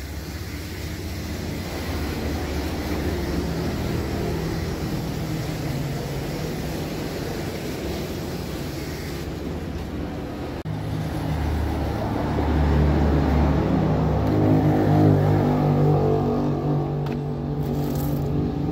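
A motor engine running with a steady low hum that grows louder about twelve seconds in, then eases off slightly.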